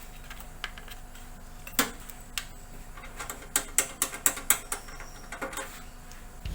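Irregular sharp metal clicks and ticks from hand tools being worked, coming faster in a run of several clicks a second in the second half.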